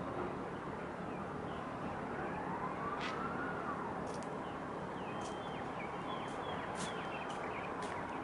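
Steady outdoor background noise at a container port. About three seconds in, a faint tone glides up and falls back, and several short sharp ticks sound in the second half.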